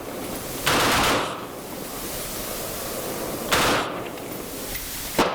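Two gunshots about three seconds apart, each with a short trailing echo, then a sharp click near the end.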